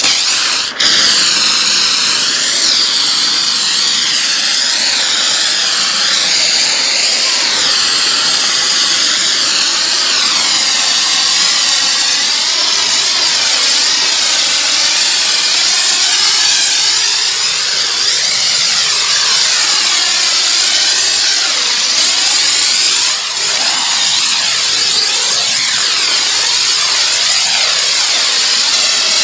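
Pressure washer spraying a car: a loud, steady hiss of the water jet that starts abruptly and wavers in tone as the spray sweeps back and forth, with a brief dip about three quarters of the way through.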